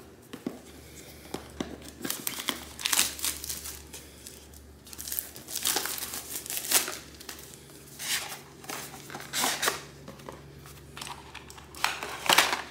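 Packaging of a Hobbywing Max6 G2 ESC and motor combo crinkling and rustling in irregular bursts as it is unpacked by hand.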